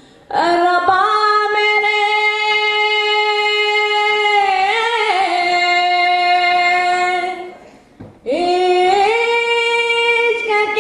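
A woman's voice singing long held notes into a microphone. The first note is held about seven seconds and wavers briefly in the middle. A second long note starts about eight seconds in.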